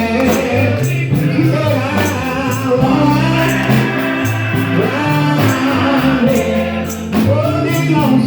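Gospel group singing with band accompaniment: voices over a stepping bass line and a steady percussion beat.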